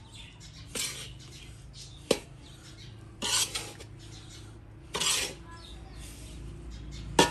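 Metal spatula scraping and turning dry roasted semolina in a large iron wok, a few scrapes a second or two apart, with a couple of sharp clinks of metal on the pan.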